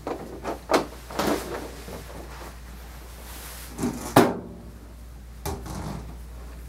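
Several short knocks and clunks, the loudest about four seconds in, with a faint hiss that stops abruptly just after it.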